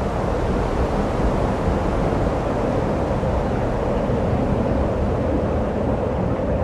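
Steady rumbling noise of a machine running, even throughout with no pauses or impacts.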